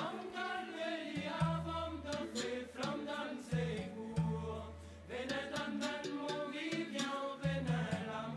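Background music: a song with singing over sustained bass notes and light clicking percussion.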